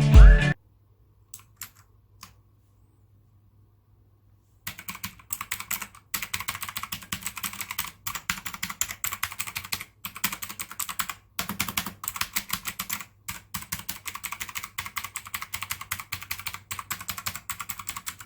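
Typing on a mechanical keyboard fitted with HyperX double-shot PBT keycaps. A few isolated keystrokes come first, then steady, fast typing from about five seconds in, with short pauses.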